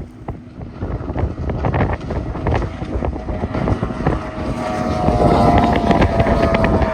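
A 22 ft Velocity race boat's engine running hard, its pitch rising a little and getting louder about two-thirds of the way in, then holding. Wind rushes over the microphone throughout.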